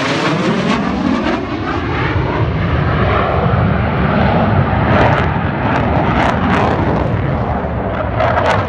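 An aircraft flying past overhead: loud, steady engine noise, with sweeping tones that fall and rise again as it passes just at the start.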